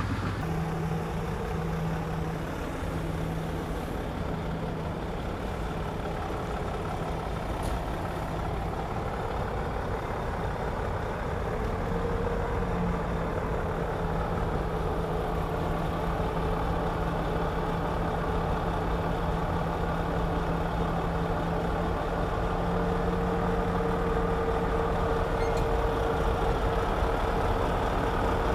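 Komatsu D61EX bulldozer's six-cylinder diesel engine running steadily under work, with a steady engine hum that steps up slightly about halfway through and grows a little louder near the end.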